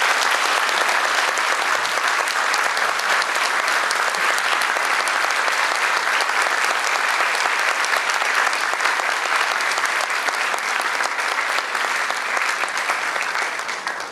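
Audience applauding: dense, steady clapping from a roomful of people, tapering off near the end.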